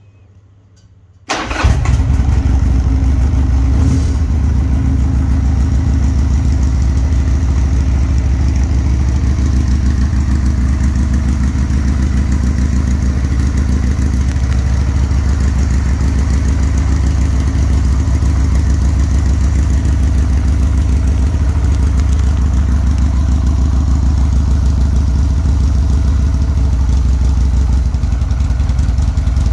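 Buell M2 Cyclone's air-cooled 1203 cc V-twin starting on the electric starter a little over a second in, catching at once and settling into a steady idle.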